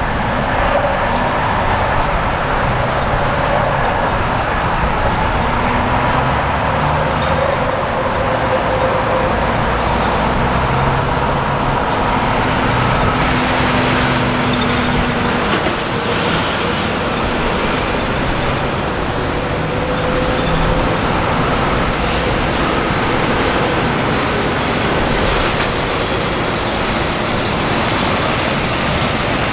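Diesel semi-truck engines running as tractor-trailers pass through an intersection, over steady road traffic noise; the engine tones come and go and shift in pitch as the trucks move off.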